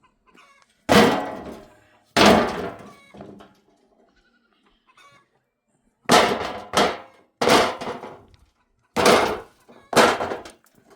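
A series of seven sharp, heavy thuds, two near the start and a quicker run in the second half, each dying away over about a second.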